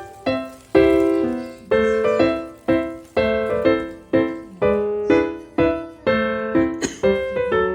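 Background music: a light piano melody, notes struck about twice a second and each fading away before the next.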